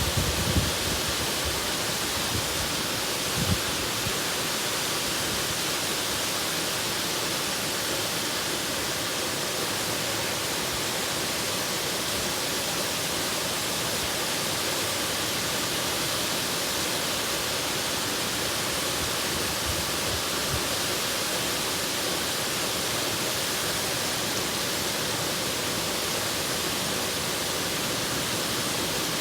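Waterfall: a steady rush of falling water that does not change, with a couple of brief low thumps in the first few seconds.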